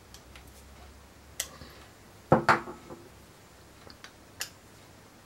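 Screwdriver working the small steel screws in the frame of an Uberti 1851 Colt Navy revolver: a few sparse metallic clicks and taps, the loudest a little over two seconds in.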